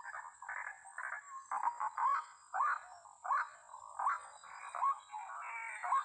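White-breasted waterhen calls: a rapid run of harsh notes, each with a quick rising tone, about one every two-thirds of a second, growing denser near the end. This is the ruak-ruak call used as a lure to draw waterhens to snares.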